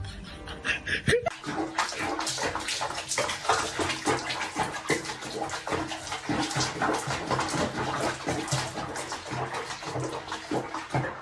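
Bathwater sloshing and splashing in a plastic basin around a cat sitting in foamy water, starting about a second in.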